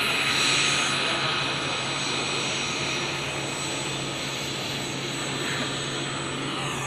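Airplane engine running steadily: a broad rush with a steady high whine over it, loudest about half a second in and then slowly easing.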